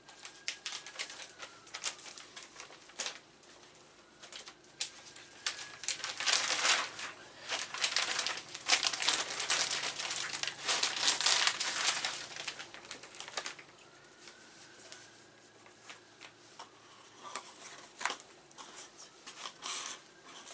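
Packaging, such as a plastic bag, being handled and crinkled in a stretch of dense rustling and crackling in the middle, with lighter scattered rustles and clicks around it.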